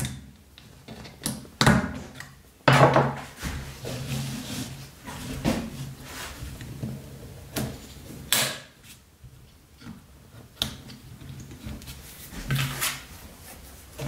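Irregular knocks and clicks of small steel pocket-knife parts and tools being handled and set down on a work board.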